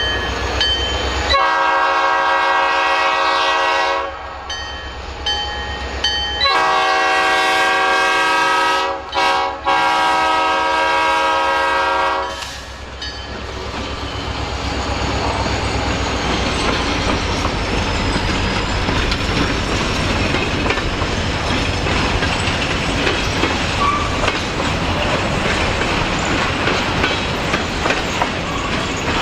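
Horn of an EMD SD40-2 diesel locomotive blowing for a grade crossing in an unusual pattern: one blast of about three seconds, then a longer blast broken twice by brief gaps. After the horn the freight train rolls through, engine rumbling and wheels clicking over the rail joints.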